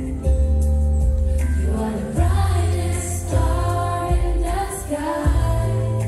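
A pop song with singing over a held bass line that changes note about once a second.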